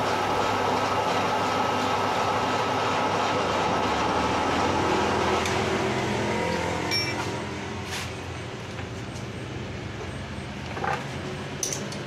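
Metal lathe running with its chuck spinning, a steady machine hum, then switched off about seven seconds in so the noise drops away. A few light metallic clicks follow near the end.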